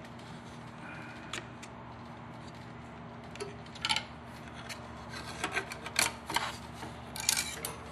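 A thin wooden fretwork piece with a paper pattern on it scraping and rubbing against the scroll saw's table and blade as it is backed off the blade and lifted clear. The scrapes come in short bunches, the most around four, six and seven seconds in, over a steady low hum.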